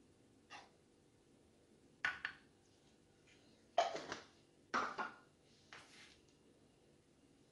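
Light clinks and knocks of kitchen utensils against a saucepan, several short sharp taps in small groups spread a second or so apart, the loudest about halfway through.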